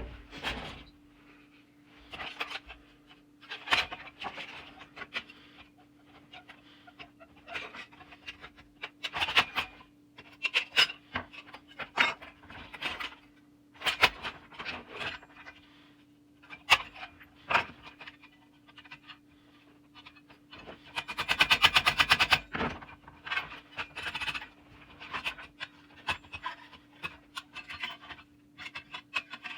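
Irregular scraping and rubbing strokes with scattered clicks over a steady low hum, and a brief fast buzz about 21 seconds in.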